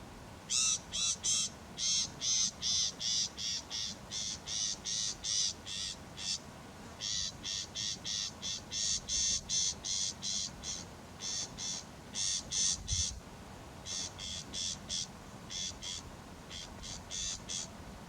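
Brown shrike (lucionensis subspecies) giving its harsh chattering call: a long series of rasping notes, about three a second, in runs broken by short pauses.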